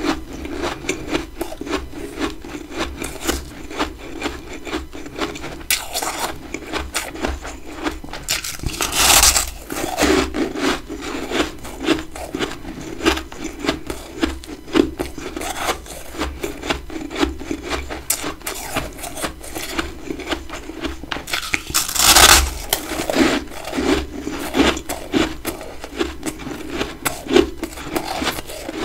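A person chewing big chunks of freezer frost: a dense, continuous run of small crisp crunches, with two louder crunching bites about nine and twenty-two seconds in.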